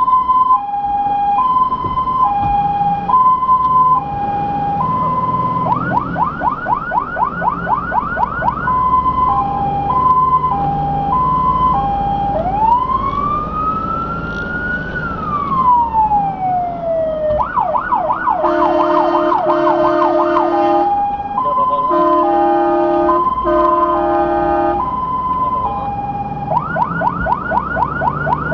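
Fire engine's siren on an emergency run, switching between a two-tone hi-lo, a fast yelp, and one slow wail that rises and falls about halfway through. In the second half a horn sounds in four blasts over the siren, with the truck's engine rumbling underneath.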